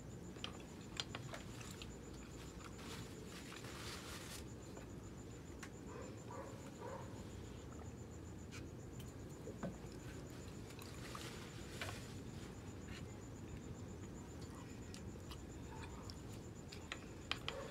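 Soft eating sounds, with chewing and a few sharp clicks of a fork, over a steady low rumble of wind.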